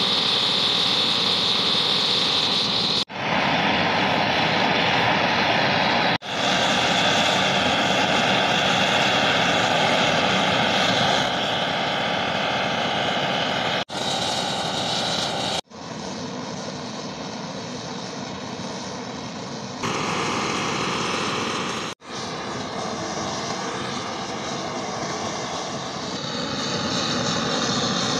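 Handheld gas blowtorch hissing steadily as its flame heats the steel air-rifle barrel and compression tube. The sound breaks off abruptly about five times and comes straight back.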